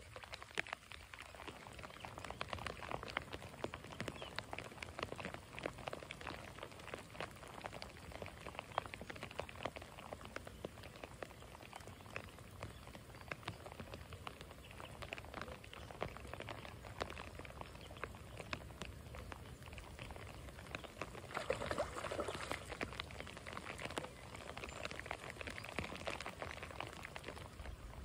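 Steady rain pattering, many separate drops ticking close by, over the even rush of the creek's flowing water. A louder swell comes about three-quarters of the way through.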